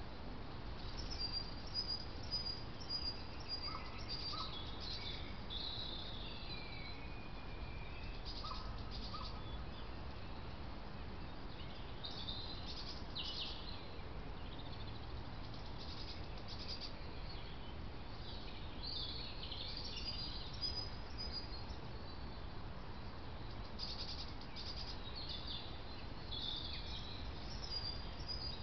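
Several small songbirds singing and calling, with short high chirps and phrases coming on and off, over a steady low background noise. A faint lower double note sounds twice, at about 4 and 8 seconds in.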